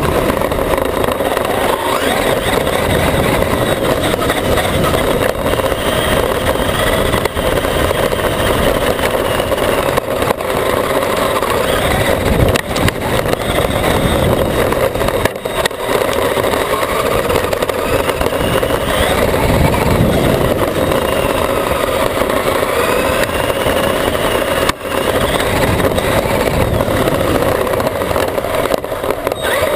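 Traxxas E-Maxx electric RC monster truck driving fast over grass, heard from on board: the whine of its electric drive rises and falls with its speed over a steady rush of drivetrain, tyre and wind noise, with a few sharp knocks as it bounces.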